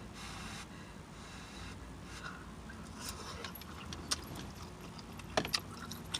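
Close-miked chewing of pasta: soft wet mouth clicks and smacks scattered through, over a low steady hum.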